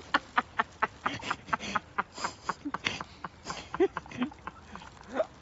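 Many scattered short clicks, with a few brief, faint human voice sounds among them.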